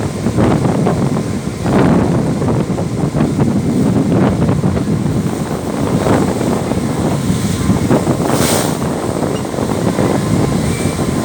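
Strong wind buffeting the microphone in loud, rumbling gusts, with a brief hissing surge about eight and a half seconds in.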